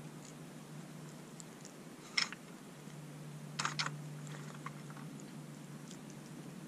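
Light plastic clicks and knocks from a dog puzzle feeder's sliding rods as a red fox noses and pushes at them: one knock about two seconds in, a quick double click a second and a half later, then a few fainter ticks.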